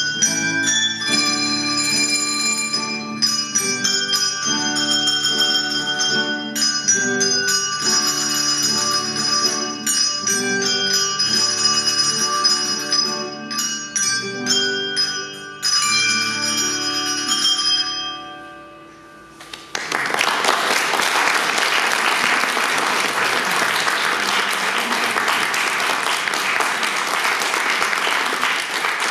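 Handbell ensemble playing, the ringing bell chords fading out about two-thirds of the way through, then the audience applauding.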